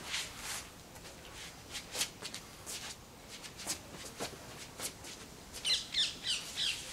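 Short swishes and scuffs from footwork and swings with a short polypropylene bat on paving stones. About five and a half seconds in, a bird calls a quick run of about five chirps.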